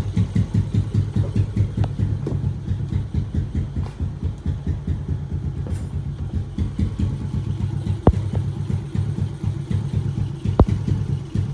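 Modified Yamaha Exciter 135 single-cylinder engine, built up to a 62 mm bore with an aftermarket exhaust, idling with a steady, rapid pulsing beat. Two sharp clicks stand out, about eight and ten and a half seconds in.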